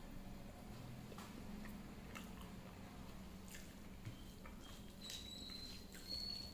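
Faint chewing and mouth sounds of a person eating, with scattered small clicks, over a steady low hum. A thin high whistling tone is heard for about a second near the end.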